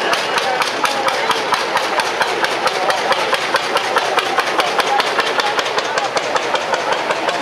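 Lanz Bulldog tractor's single-cylinder two-stroke hot-bulb engine running as it drives past, a steady rapid knocking of several beats a second.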